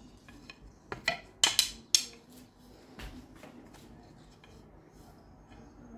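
Handmade wooden dowels clacking as they are laid down on a wooden workbench: a quick run of sharp knocks about a second in, the last two loudest, then a few light taps.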